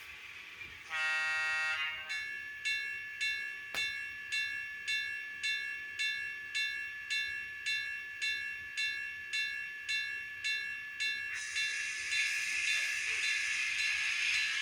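Sound decoder in an N scale GG1 model playing the GG1 electric locomotive sound file through its tiny speakers: a horn blast about a second in, then a bell ringing about twice a second. Near the end a hiss comes in, with a whine that rises in pitch.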